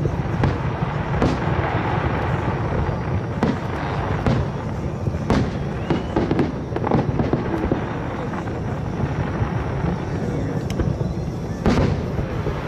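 Aerial fireworks bursting in a continuous dense barrage, with sharp bangs every second or two and a loud one near the end.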